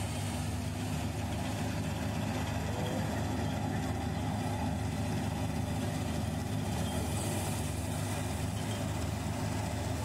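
Nazar 930 combine harvester running steadily as it cuts a standing cereal crop, a constant deep engine drone with the whir of the header and threshing works, growing slightly louder toward the end as it comes closer.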